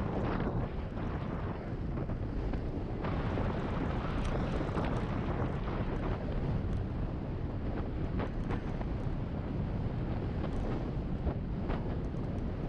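Wind rushing and buffeting over the camera's microphone on a fast bicycle descent, mixed with tyre noise on rough, patched asphalt. Scattered light clicks and knocks run through it.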